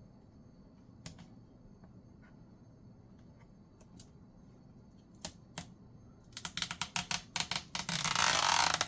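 Sticky plastic film or adhesive tape being peeled off a laptop part. A few scattered small clicks come first. From about six seconds in there is rapid crackling that grows louder and denser near the end as the piece comes away.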